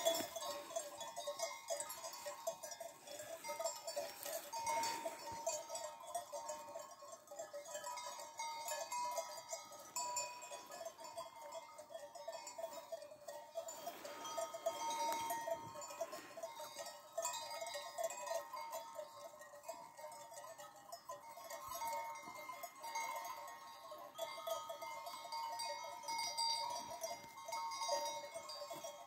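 Bells worn by a grazing flock of sheep, many ringing at once in a continuous jangle.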